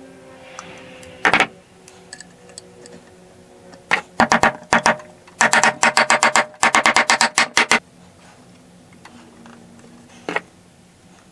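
Fret wire being tapped into the fretboard slots with a small hammer: sharp metallic strikes, a single one at first, then a few, then a quick run of about a dozen, and a last one near the end.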